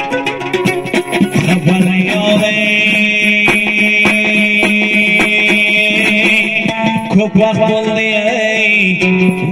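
Afghan dambura, a long-necked two-string lute, strummed in a quick even rhythm. From about two seconds in, a man sings over it in long, held notes.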